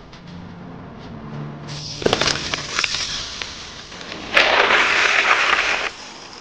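Trials bike coming down off a rubble pile about two seconds in: sharp knocks of tyres and frame on broken concrete and brick, with loose debris clattering and crackling. Later a loud, even rush of noise lasts about a second and a half and cuts off suddenly.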